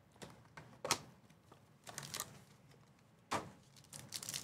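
Cardboard card box and a foil trading-card pack being handled, heard as a few scattered sharp taps and rustles, the loudest about three seconds in. Smaller crackles of the foil wrapper follow near the end.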